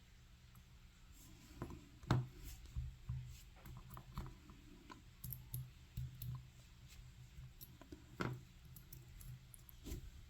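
Small, irregular metal clicks and taps from pin-tumbler pins and tools on an Assa 700 lock cylinder as its pin stacks are taken out. Two sharper clicks stand out, about two seconds in and about eight seconds in.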